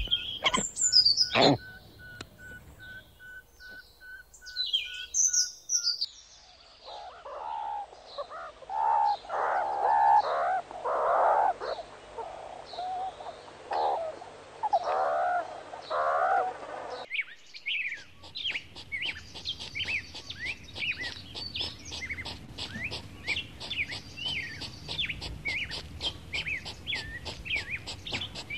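Chirping animal calls: a run of lower, chattering calls in the middle, then a dense chorus of small birds chirping rapidly over the last third.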